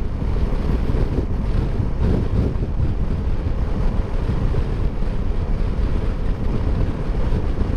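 Steady low wind rumble buffeting the microphone of a 2019 Kymco Xciting S 400 maxi-scooter cruising at highway speed, around 88 km/h, mixed with road and engine noise.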